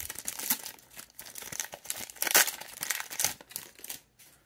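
Foil wrapper of a Kayou Naruto trading-card booster pack crinkling and tearing as hands open it, in a string of short rustles that stop about four seconds in.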